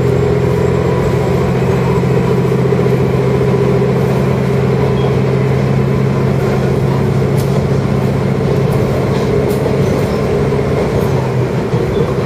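Diesel railcar running steadily along the track, heard from inside the carriage: a constant low engine drone with rail rumble. The engine note eases off near the end.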